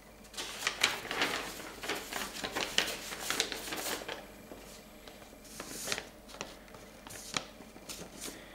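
Rustling and clicking handling noises: a dense run of soft rustles and clicks for the first few seconds, then scattered single clicks, a sharper one a little past seven seconds.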